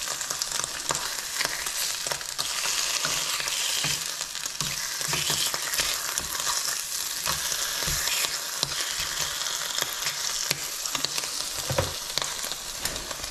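Bacon slices sizzling in a frying pan: a steady hiss full of small pops, with a few soft knocks scattered through it.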